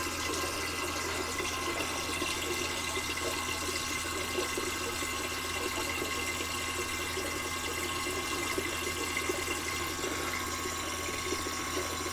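Small rechargeable lithium battery water pump running steadily with a thin whine, while warm water pours and splashes into a sink.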